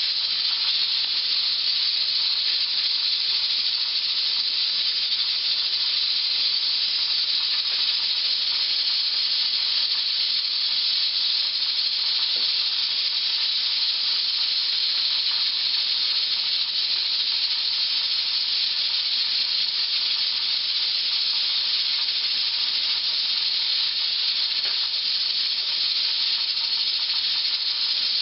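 Pressure canner hissing steadily as steam escapes under pressure during canning.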